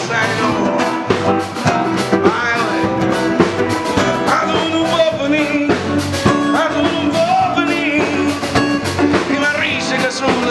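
Live blues band playing: a man sings into a handheld microphone over two electric guitars.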